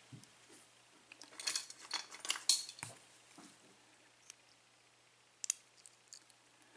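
Small metallic clicks and scraping from hand tools working the pins out of a disassembled ABUS 5-pin euro cylinder. There is a busy run of clicks about one and a half to two and a half seconds in, then a few single sharp clicks.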